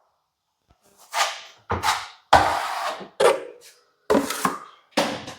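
Plastering trowel scraping and knocking setting compound, about six short strokes with one longer scrape in the middle, starting about a second in.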